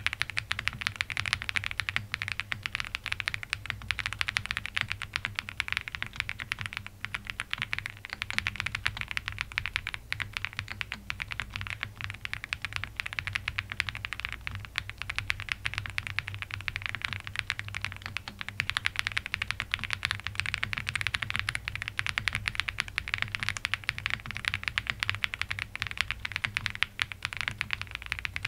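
Continuous fast typing on a Meletrix Zoom98 custom mechanical keyboard with TTC Block switches and GMK keycaps: a dense, unbroken run of key clicks.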